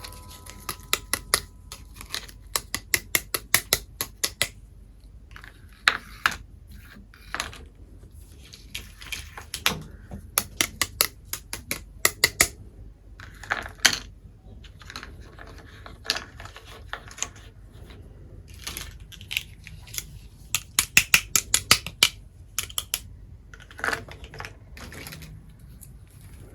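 Small hard toy pieces, such as miniature kitchen utensils and dishes, being handled and set down, making quick runs of sharp clicks and taps with short pauses between them.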